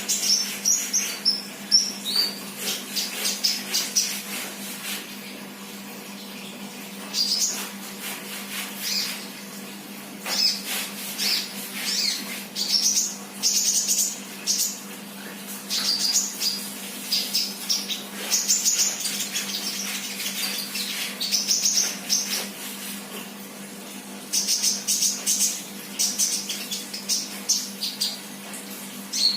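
Captive sunbird chirping in quick, high-pitched clusters of chirps and short trills, broken by brief pauses.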